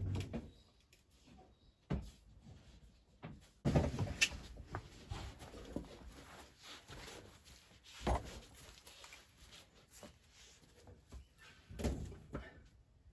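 Handling noise in a small room: scattered knocks and thumps with scraping and rustling. The busiest stretch comes about 4 seconds in, and further bumps fall near 8 and 12 seconds.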